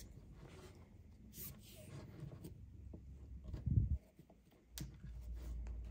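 Faint rustling and scraping of paracord being handled through a tension knot, with one dull thump about two-thirds of the way in.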